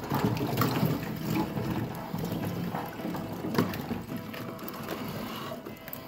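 Ice water sloshing and splashing around a body in a chest-freezer cold plunge, busiest in the first couple of seconds, over background music.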